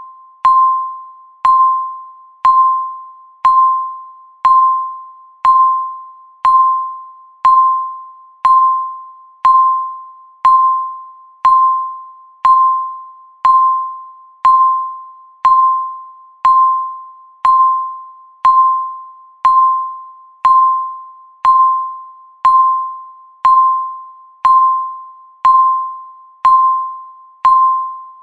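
Countdown timer beeping once a second: a short, mid-pitched electronic beep that strikes sharply and fades before the next, each one marking a second ticked off the countdown.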